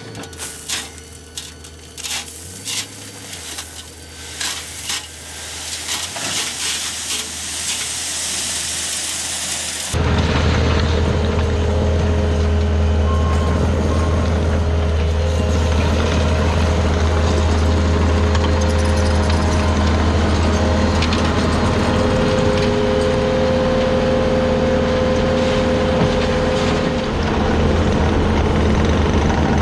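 Knocking and clattering for about the first ten seconds. Then, after a sudden cut, a heavy diesel engine runs steadily with a deep hum to the end.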